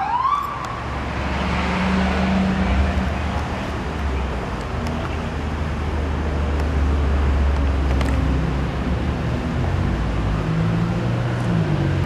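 A police siren sweeps upward in the first second, then passing traffic keeps up a steady low engine rumble and road noise.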